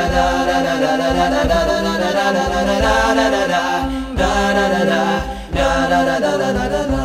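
A cappella nasheed between verses: wordless layered voices sing a chant-like melody over a steady sung drone, with occasional low thumps.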